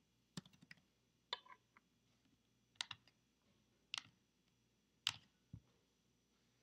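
Computer keyboard keystrokes and mouse clicks: a short run of taps near the start, then single sharp clicks about a second apart.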